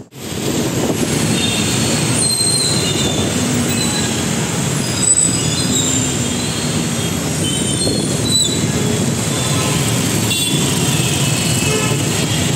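Steady noise of dense traffic on a wet road, with many short high-pitched squeals and tones scattered over it.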